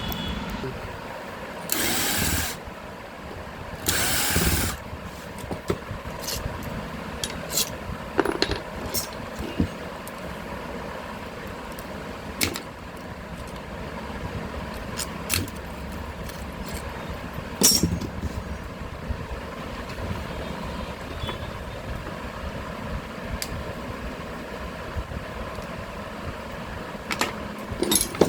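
Scattered clicks, taps and knocks of tools and small metal parts being handled during a power-tool repair, with two short hissing bursts about two and four seconds in, over a steady background rumble.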